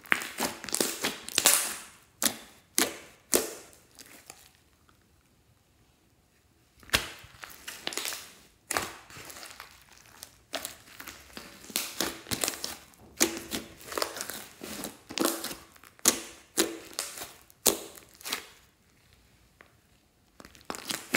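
Hands squeezing and kneading a thick, glossy metallic slime, making bursts of sticky crackling and popping. The squishing stops for about two seconds around four seconds in, and again briefly near the end.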